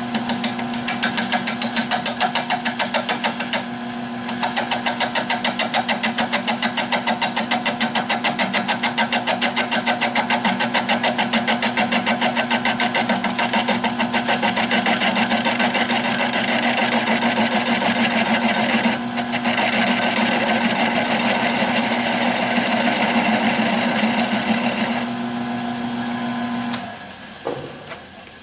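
Bowl gouge cutting into a spinning, out-of-round oak knot on a Nova 16/24 wood lathe: a rapid, even chatter over the steady hum of the lathe. The cutting and the hum stop near the end.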